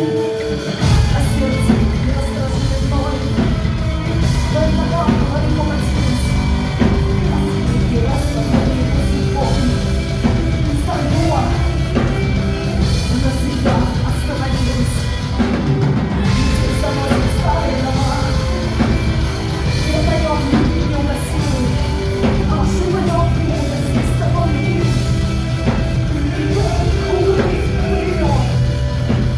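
Heavy rock band playing a song: drums and distorted guitars with a singer, the full band coming in right at the start after a lighter guitar passage.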